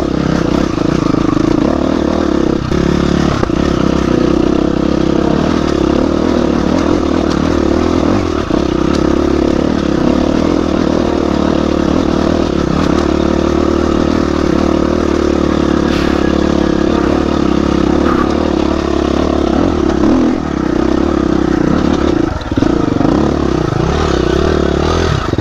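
Dirt bike engine running at a fairly steady speed under way, dipping briefly a few times, with occasional knocks and clatter from the bike.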